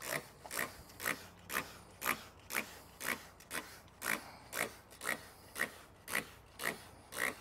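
Zep Professional Sprayer trigger spray bottle being pumped repeatedly: a short hissing squirt about twice a second, evenly spaced.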